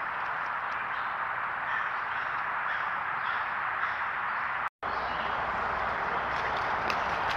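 Steady hiss from a trail camera's microphone in summer woods. It cuts out for a moment about five seconds in, and a few light ticks follow near the end.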